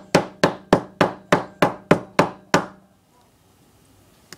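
A hammer striking a plaster dig block in a fast, even series, about three blows a second, nine or so in all, stopping about two and a half seconds in.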